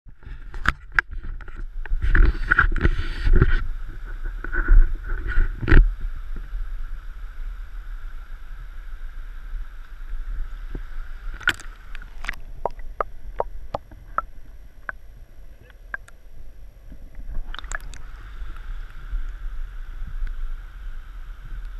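Rumble and knocks of a camera being handled, then water gurgling and lapping close to the microphone over the steady rush of a small stream. Sharp knocks and clicks come now and then, in a cluster a little past halfway and again near the end.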